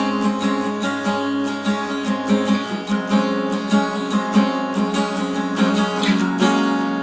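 Acoustic guitar strummed in a steady rhythm, chords ringing, with no singing.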